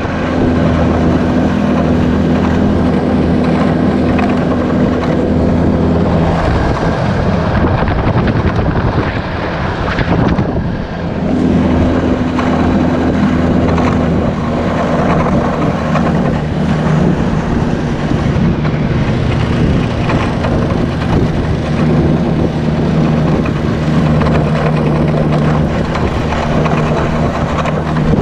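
Snowmobile engine running as it rides across the ice, with a steady rush of wind and track noise. The engine note falls away about seven seconds in, then picks back up a few seconds later and holds steady, shifting slightly in pitch.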